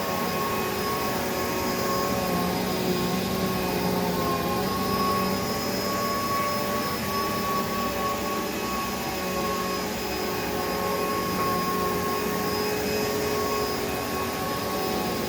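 Hoover Elite Rewind upright vacuum cleaner's motor running with a steady whine that wavers slightly in pitch now and then. The motor has just been cleaned out of grass, and it is running quieter.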